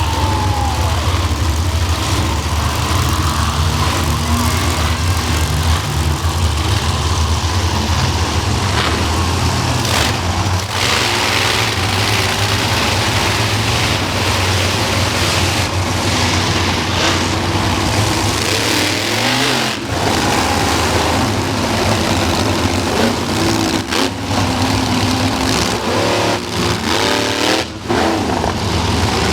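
Monster truck engines running with a deep, steady rumble, revved up now and then in rising and falling swells.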